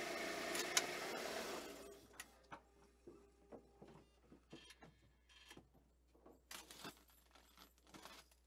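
A held musical tone fades out over the first two seconds. After it come faint, scattered small clicks and rattles of someone moving about in a parked car, handling keys.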